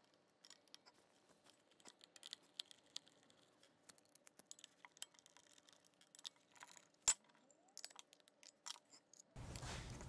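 Faint, scattered small metallic clicks and clinks of screws and a sheet-metal cover being taken off an electric motor's wiring box, with one sharper click about seven seconds in.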